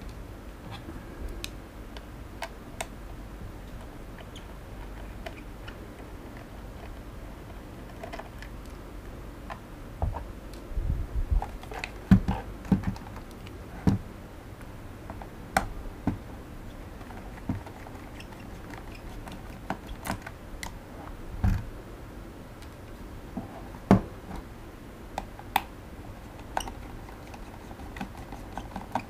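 Irregular small clicks and taps of a precision screwdriver turning screws in the plastic case of a drone remote controller, with the case being handled; the clicks come sparsely at first and more often after about ten seconds.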